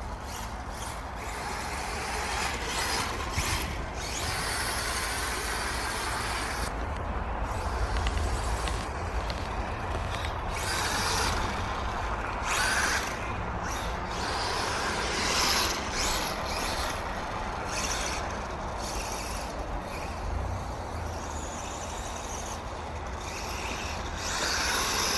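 BSD Racing 404T 1/4-scale brushless electric RC dirt bike being ridden, its motor and tyres swelling and fading in repeated surges of throttle.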